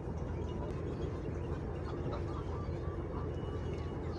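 Steady low motor hum, with a few faint short chirps in the middle.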